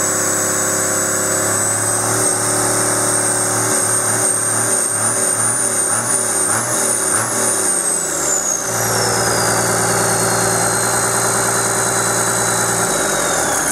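Komatsu S6D95L-1 turbocharged six-cylinder diesel engine running on a stand. It is held at raised revs with a high turbo whine that climbs slightly, then drops back toward idle about eight seconds in as the whine falls steadily in pitch.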